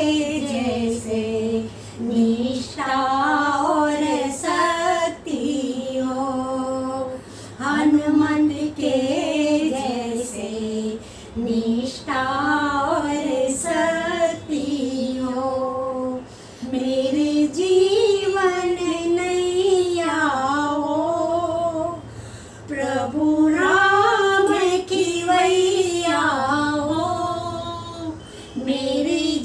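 Two women singing a Hindi devotional bhajan without instruments, in long held phrases with short breaks between them.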